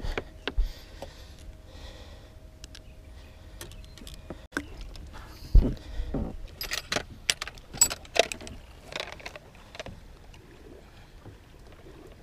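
Light clicks, knocks and small metallic jangles of fishing gear being handled on a boat as a just-caught bass is dealt with and weighed, bunched in the second half, with a dull thump about five and a half seconds in. A faint steady tone hangs under the first few seconds.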